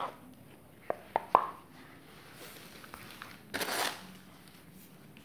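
Handling sounds as a folded tant cotton saree is spread out by hand: three sharp clicks in quick succession about a second in, then a short rustle of the cloth a little past the middle.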